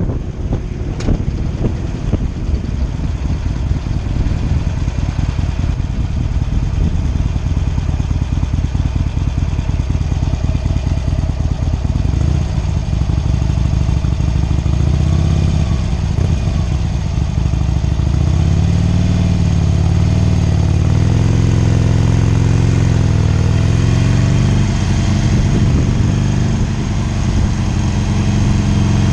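Harley-Davidson Sportster 883 Iron's air-cooled V-twin running at road speed, with wind buffeting the microphone through the first half. From about halfway the engine note comes through more clearly, its pitch rising and falling with the throttle before settling.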